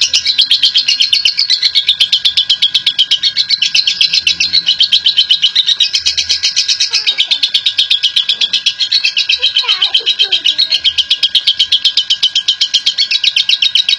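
Lovebird doing its long 'ngekek' chatter: an unbroken, rapid run of high, shrill repeated notes at about seven a second.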